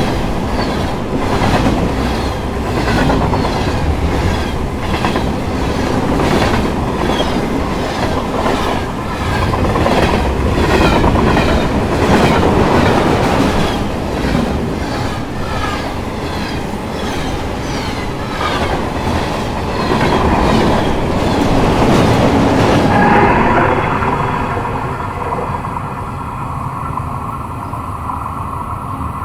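Train passing close by: a loud rumble with its wheels clicking over the rail joints in an even rhythm, about one and a half clicks a second. About 23 seconds in, the clicking stops and a quieter, steadier hum is left.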